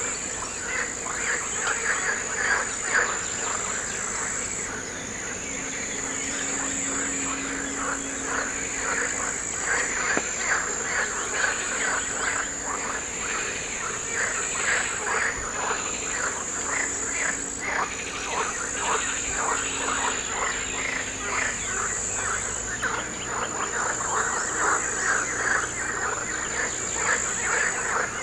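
A dense chorus of frogs calling in rapid pulsed croaks, over a steady high-pitched insect trill that breaks off briefly now and then.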